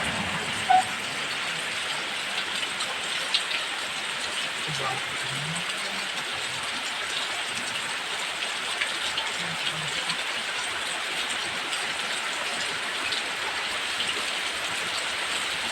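Heavy rain falling steadily, a continuous even hiss of downpour on surfaces. There is one short sharp sound about a second in.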